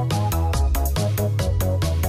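Background electronic dance music with a fast, steady beat and heavy bass.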